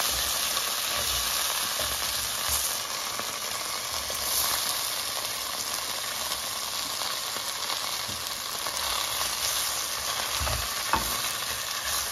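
Chicken pieces sizzling steadily in hot oil as they brown in a clay pot, with a wooden spoon stirring and scraping them around the pot.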